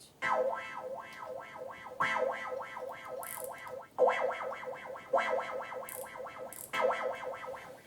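Synthesizer played through a Boss MD-200 modulation pedal: short phrases of quickly repeated, choppy notes, each one starting over every second or two.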